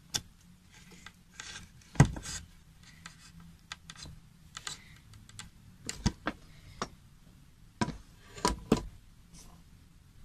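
Handling noise of hands on a wooden target board: scattered taps, knocks and rubbing, the loudest knock about two seconds in and a cluster of sharper clicks near the end.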